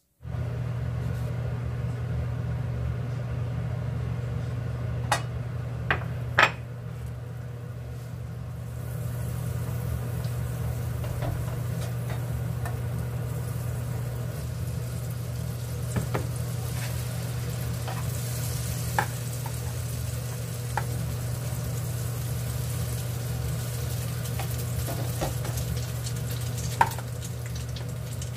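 Butter and egg-soaked bread sizzling in a nonstick frying pan, the sizzle growing louder about a third of the way in. A few sharp clicks of utensils against the pan sound over a steady low hum.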